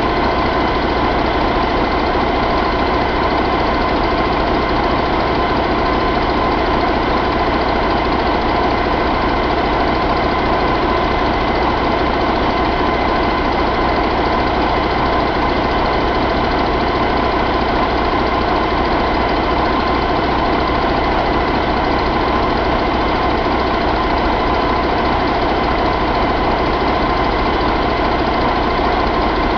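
Mercedes-Benz MBE4000 inline-six diesel engine running at a steady speed, with no revving.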